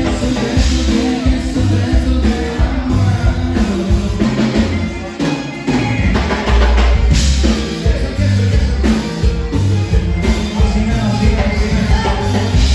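Live conjunto band playing loud dance music, with singing over drums and bass; the music thins briefly about five seconds in, then comes back with a heavier bass.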